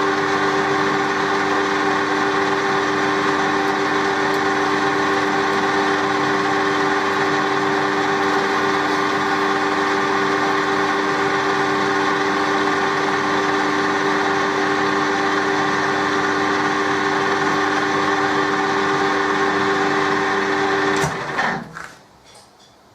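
Colchester metal-turning lathe running steadily with a gear whine while taking a light finishing cut of about 5 thou. Near the end it is switched off and the sound dies away within a second.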